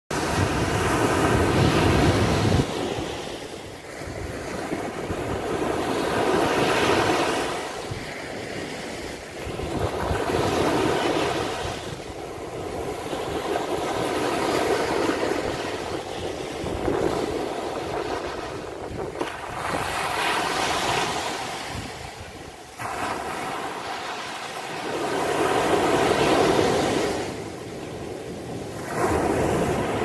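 Small sea waves breaking and washing up a sandy beach, the surf swelling and fading about every four seconds.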